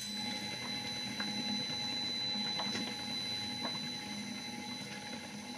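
Motor-driven stone-mortar kneading machine, a pestle grinding and mixing wet pastel pigment paste. It runs with a steady low hum and a few faint, irregular clicks. The machine is the kind the maker believes was built for making kamaboko fish paste.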